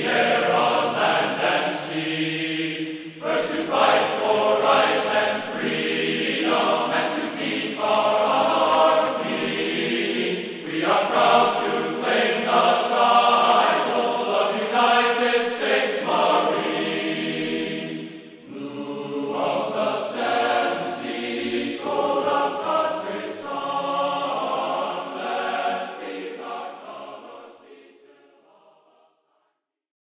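Choral singing: several voices in long sung phrases with brief pauses between them, fading out over the last few seconds.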